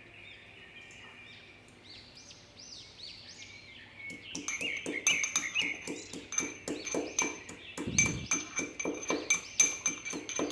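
Small birds chirping. From about four seconds in, a quick series of sharp ringing strikes, about three a second, becomes the loudest sound.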